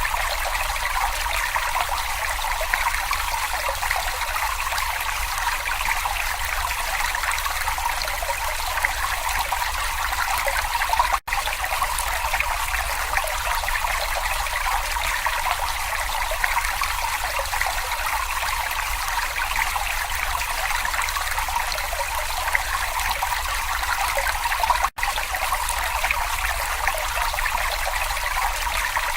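Babbling brook: water running and trickling in a steady, continuous babble. It is broken by two split-second gaps, about eleven seconds in and again near the end.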